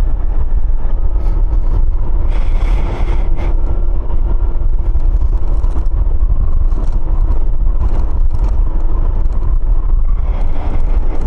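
Kymco 125cc motor scooter on the move: the engine runs steadily under a heavy, constant rumble of wind buffeting the microphone.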